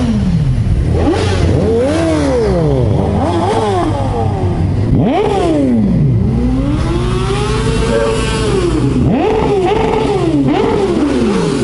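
Motorcycle engine revving up and falling back repeatedly as it rides through town, about five quick rises and drops in revs, over a steady rush of wind and road noise.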